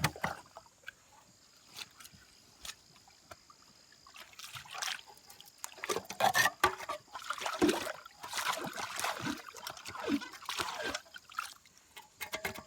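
Water sloshing and splashing in irregular bursts as a backhoe bucket churns a muddy spring-fed pool, strongest from about halfway in until shortly before the end.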